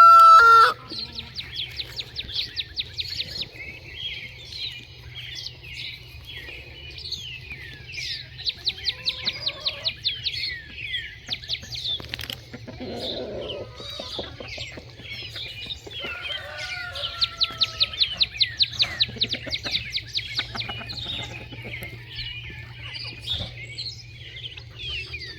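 Small wild birds chirping and trilling in quick runs of high notes, loudest in a fast burst of chirps a little past the middle. The last of a rooster's crow fades out in the first second.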